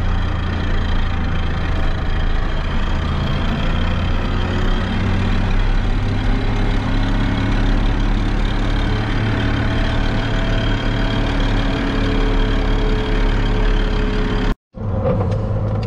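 Blue Ford farm tractor's diesel engine running steadily while the tractor drives along a road, heard from inside the cab as a loud, even drone with a strong low hum. The sound cuts out abruptly near the end.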